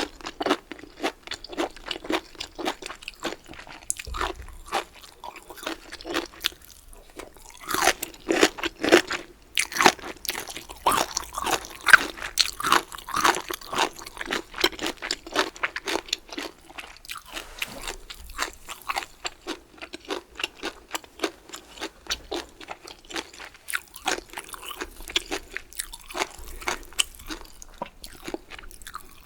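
Close-miked eating: crunchy bites and chewing of bamboo shoots with rice, a steady irregular run of crackling chews that grows denser and louder for a stretch about a third of the way in.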